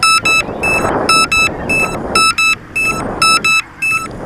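Crashed drone's lost-aircraft alarm beeping: rapid short, high beeps, singly and in pairs, several a second, that signal where the downed drone lies so its owner can find it. They sound over a rustling noise.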